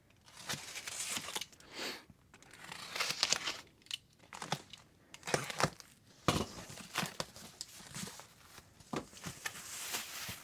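Packaging being unpacked by hand: irregular crinkling and tearing of packing material, with scattered sharp knocks.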